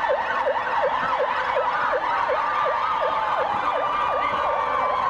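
An electronic siren yelping, its pitch sweeping rapidly down and back up about three times a second. A steady high tone joins in about halfway.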